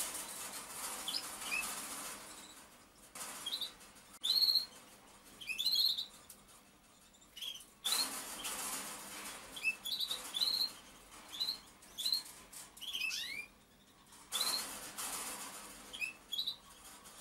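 Pigeon squab cheeping in many short, high peeps while being tube-fed with rearing formula, with bursts of rustling in between.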